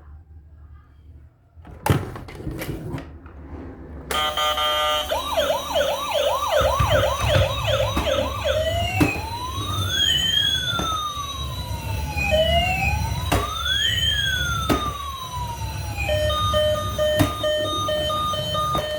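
Toy emergency vehicle's electronic siren: after a few clicks it starts about four seconds in with a fast yelp of quick rising chirps, changes to slow rising-and-falling wails, and near the end switches to a steady on-off beeping tone.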